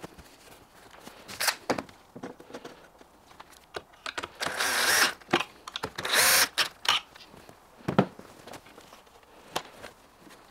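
Cordless drill-driver running in two short bursts against a cabinet panel, the first about a second long and the second shorter, about four and six seconds in. Scattered knocks of wooden cabinet panels being handled are heard around them.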